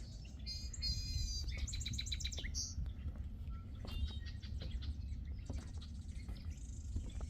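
Small songbirds chirping and twittering, several quick high phrases in the first three seconds and more after, over a low rumble of wind.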